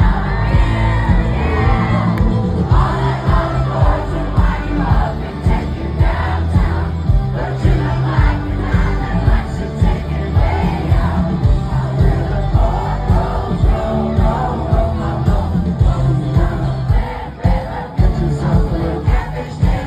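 Live concert music: an amplified band with a strong bass beat and a lead singer, the crowd noise mixed in.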